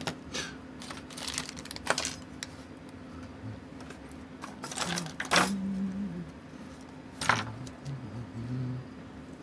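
A few separate, sharp, light clicks and taps of metal watchmaking tools and small watch parts being handled on the bench during movement reassembly, spaced irregularly over a steady low hum.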